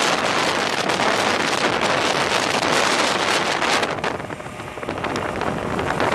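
Wind rushing and buffeting the microphone on a moving scooter, in gusts. It eases for about a second roughly two-thirds of the way through, then picks up again.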